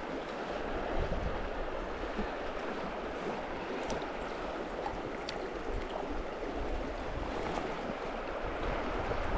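Steady rush of river water flowing over rocks in a shallow run, with a few faint ticks about four and five seconds in.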